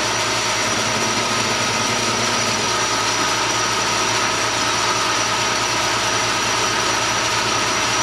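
Metal lathe running steadily, motor and gearing giving an even whine with a thin high tone above it as the three-jaw chuck spins a small steel pin.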